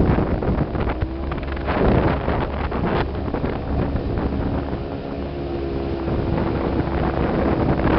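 Fishing boat's motor running under way, its steady note stepping slightly in pitch a couple of times, with wind buffeting the microphone.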